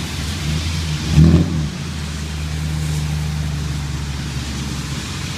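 Heavy rain pouring down, with a steady low rumble underneath and a brief louder swell about a second in.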